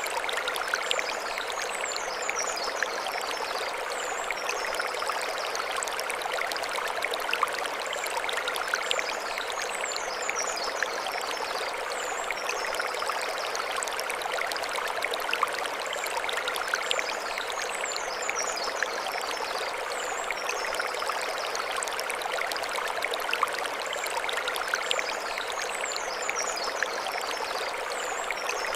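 Mountain stream babbling steadily over stones. High chirping bird phrases come in every few seconds above the water.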